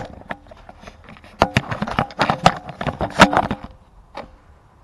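Handling noise from a toy foam-dart blaster and the camera held with it: a quick, irregular run of sharp clicks and knocks lasting about two seconds, then one last click.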